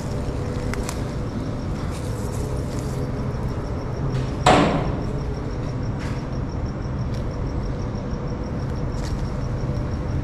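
Steady hiss with a low hum, broken about four and a half seconds in by a single sharp bang that dies away within half a second, and a few faint clicks.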